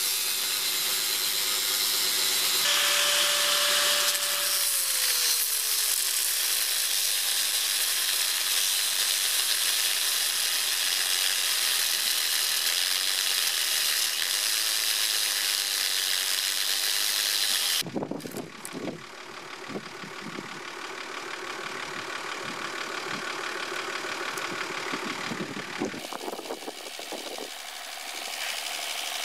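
Angle grinder grinding a steel railway rail, a steady hissing grind. It stops abruptly about two-thirds of the way through, and quieter scattered knocks and handling sounds follow.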